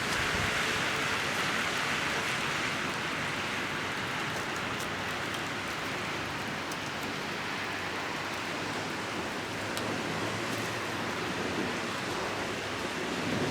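Steady rain falling, an even hiss with a few faint sharp drip ticks now and then.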